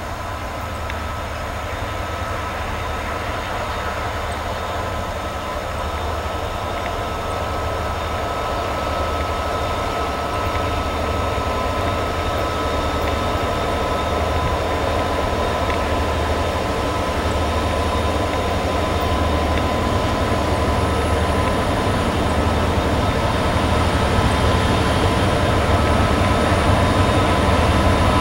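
Several diesel freight locomotives running in multiple, with their heavy train behind them, approach steadily. There is a low engine rumble with a steady high whine over it, and the sound grows louder as they come closer.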